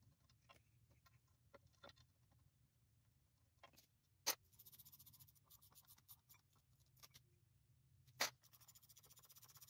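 Socket ratchet clicking in quick runs as bolts are worked loose on a Model T rear axle, with two sharp metal clinks, one about four seconds in and one near the end.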